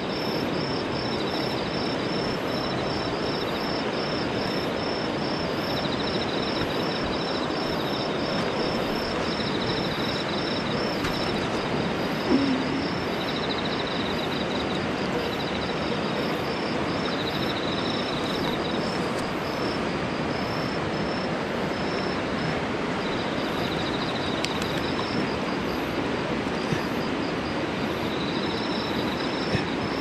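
Steady rush of mountain-stream rapids, with a faint, high, regular pulsing over it and one short low blip about twelve seconds in.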